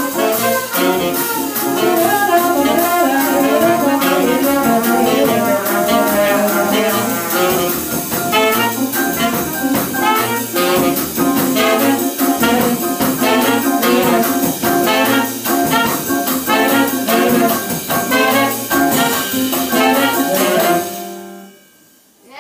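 Live jazz band playing, with trumpet and saxophone over piano and a steady cymbal beat. The music dies away near the end.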